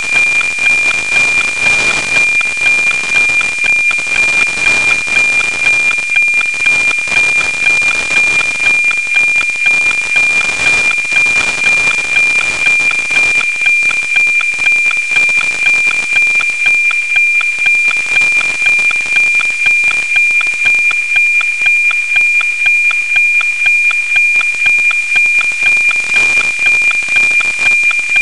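NOAA 19 weather satellite APT downlink at 137.1 MHz, heard as FM-demodulated radio audio. It is a steady 2.4 kHz tone with an even tick-tock rhythm, buried in static hiss from a weak, low-elevation pass. The hiss thins somewhat about halfway through.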